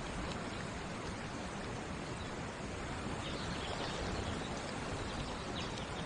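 Steady rush of stream water flowing over and around low stepping stones, with a few faint short high chirps over it from about halfway through.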